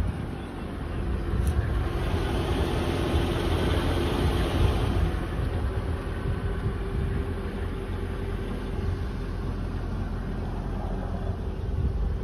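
2003 Mercedes-Benz S55 AMG's supercharged 5.4-litre V8 idling with a steady low rumble, with a brief click about a second and a half in.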